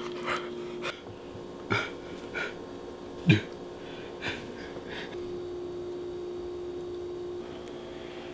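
Short human burps and breaths, about seven in the first five seconds, the loudest about one and a half and three seconds in; a faint steady hum runs underneath.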